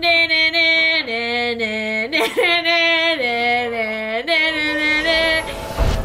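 A voice sings a phrase of held, wavering notes, dropping to a lower note and back up again twice. Near the end comes a single deep boom.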